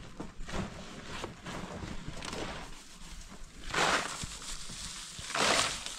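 Dry hay rustling and crackling as it is handled in an animal pen, with two louder rustling bursts, one about four seconds in and one near the end.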